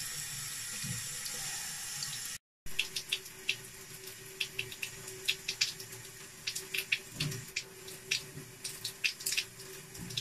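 Thin stream of tap water running steadily into a sink. After a brief cut, water running from a bathtub tap, quieter, with irregular splashing ticks and drips.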